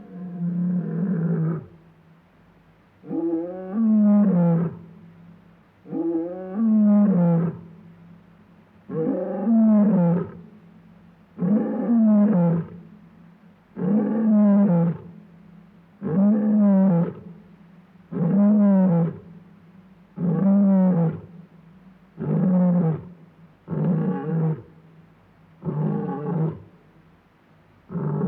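Lion roaring: a bout of about a dozen deep roars, each about a second long and rising then falling in pitch, coming every two to three seconds and a little closer together toward the end.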